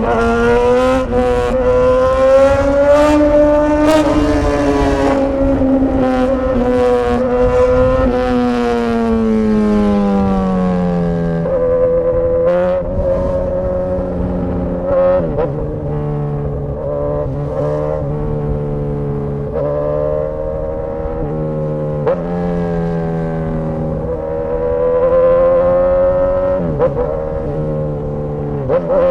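Straight-piped Suzuki GSX-S1000 inline-four running with no silencers while riding. It rises in pitch for the first few seconds, drops off as it slows about ten seconds in, then holds a lower steady note with small throttle changes. Sharp cracks are heard in the first several seconds.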